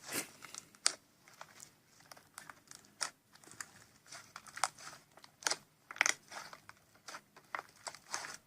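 Slime being squished and poked, giving many short, irregular crackles and clicks.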